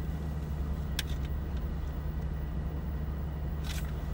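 Steady low rumble inside a car cabin with a low steady hum. There is a short click about a second in and a brief rustle near the end as a CD case is pulled from a jacket.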